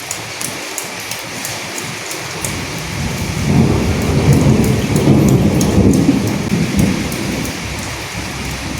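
Steady rain falling with fine drop ticks. About three seconds in, a low rolling rumble of thunder swells, then fades away before the end.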